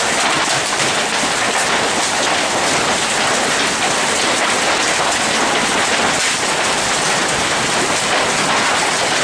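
Hail falling hard in a steady, dense hammering of countless small impacts, with no let-up.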